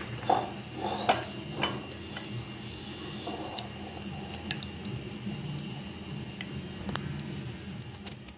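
Fingers squishing and mixing thick strained yogurt with chilli powder in a glass bowl, with a few light clicks in the first two seconds.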